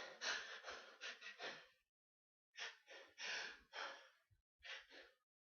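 Rapid, breathy gasping intakes in short bursts, typical of the false starts of a sneezing fit. They come in two runs with a brief pause between, and no full sneeze breaks out.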